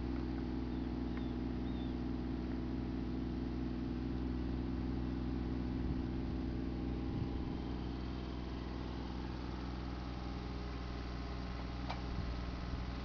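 Diesel engine of an E32 mini excavator running steadily under a constant throttle as the machine digs a trench.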